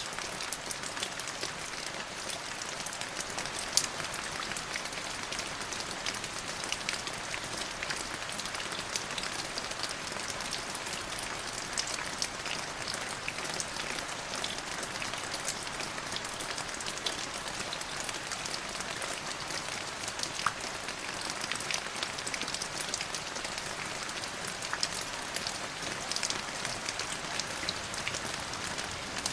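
Steady rain falling: an even hiss with many separate drops ticking sharply through it.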